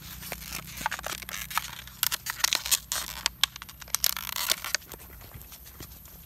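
Thin plastic water bottle crinkling and crackling as it is squeezed and a young monkey grabs and pulls at it. The crackles come in a rapid, irregular flurry that stops about five seconds in.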